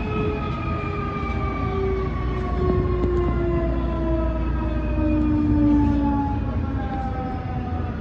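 Electric commuter train pulling away: its inverter and traction motors whine in several tones that slowly drop in pitch, over a steady low rumble of the running gear.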